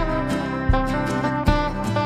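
Background music with a steady beat, about one beat every three-quarters of a second.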